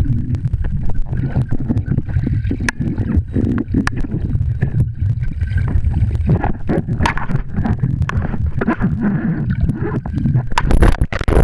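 Muffled underwater sound of a swimming pool picked up by a submerged waterproof camera: a steady low rumble with gurgling and scattered clicks as swimmers move around it, and a louder rush of water near the end.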